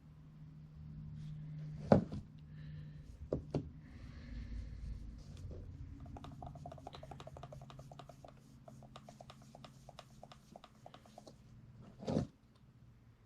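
Handling noise from a camera lens being cleaned and inspected by hand: a sharp knock about two seconds in, two quicker knocks soon after, then a long run of fast light ticks, and another knock near the end.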